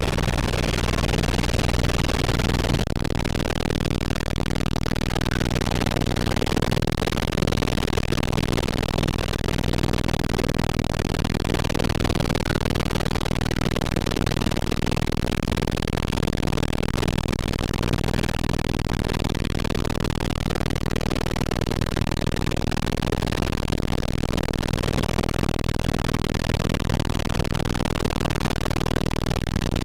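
Steady drone and rush of a helicopter in flight, with a constant low hum beneath; the sound turns slightly duller about three seconds in.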